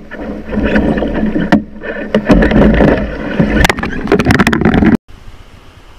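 White water of a small rapid splashing and rushing against a Royalex canoe, with repeated sharp knocks and bumps as the canoe is tossed and heels over. The sound cuts out suddenly about five seconds in.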